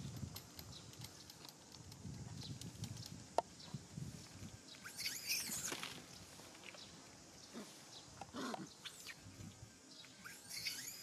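Baby macaque giving short high-pitched squeals in bursts, around the middle and again near the end, over faint rustling in dry leaves.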